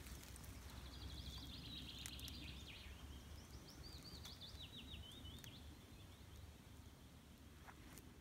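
Faint outdoor ambience with a small bird singing a run of quick, high chirping notes, some sweeping downward, from about one to five seconds in; the ambience fades slowly toward the end.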